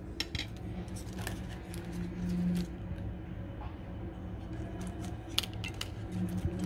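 Light handling noise: scattered small clicks and rustles as a card hang tag is held and turned by hand, over a steady low hum.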